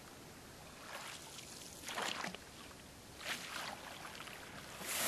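Canoe paddle strokes: a series of soft swishes and splashes as the paddle dips and pulls through the water, about one a second.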